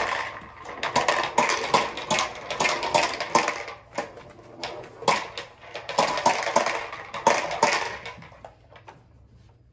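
Push-along popper toy rolled across the floor, its plastic balls popping and clattering inside the clear dome in rapid, irregular clicks. It stops about eight seconds in.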